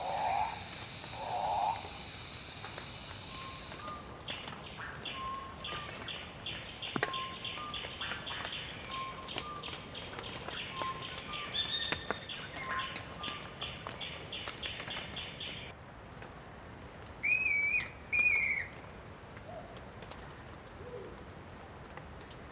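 Cloud forest ambience in three recordings cut together. First comes a steady high-pitched insect drone. About four seconds in, a fast pulsing chorus of calls takes over, with short low notes scattered through it. After a cut to quieter forest air, two loud whistled bird calls sound in quick succession.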